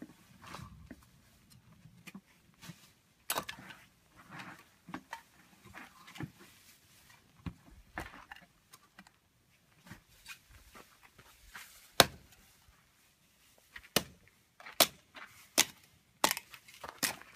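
Firewood being split into kindling by hand: irregular sharp wooden knocks and cracks, with softer rustling of the wood pieces between. The knocks are sparse at first and come faster in the last few seconds.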